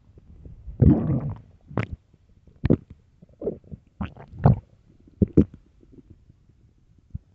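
An empty, hungry stomach growling: one longer rumble about a second in, then a string of short, sharp gurgles and pops that grow weaker near the end.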